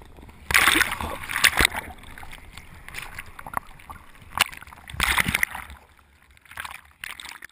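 Seawater sloshing and splashing around a camera held at water level on a bodyboard, in irregular loud splashes over a steady wash, the biggest about a second in and again around five seconds.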